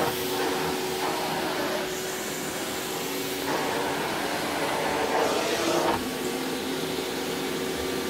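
Vacuum cleaner running steadily, a constant motor hum with suction noise that swells for a couple of seconds midway and then drops back.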